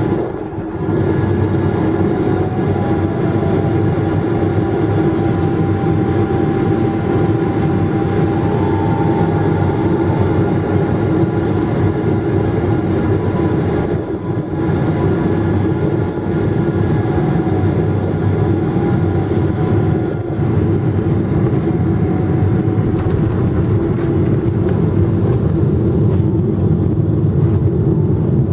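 Cabin noise of a Boeing 777-200 on final approach: the engines and rushing air make a steady roar, with faint engine whine tones that drift slightly in pitch.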